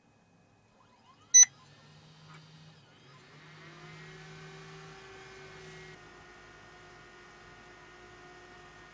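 A single short, loud beep, then the DLP projector's colour wheel motor spins up with a whine that rises in pitch and settles into a steady tone, over a low hum.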